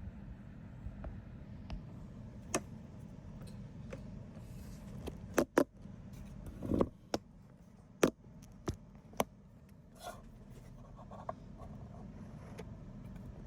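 Irregular sharp clicks and taps of small hard objects being handled, about ten in all and loudest around the middle, over a steady low hum.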